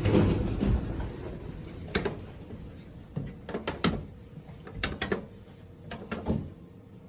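Irregular sharp clicks and knocks, about nine at uneven spacing, with a low rumble in the first second.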